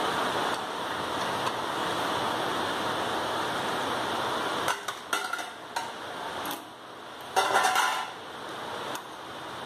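A metal spoon clattering and scraping against a pan of chicken curry as it is stirred, in two short bouts past the middle, the second the louder, over a steady rushing hiss.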